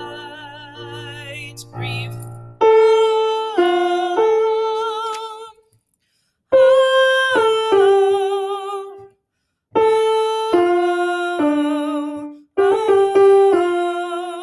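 A woman singing alto-line notes without words, with piano sounding the same notes, in a few short phrases of held notes with vibrato, each starting sharply and fading, separated by brief breaks.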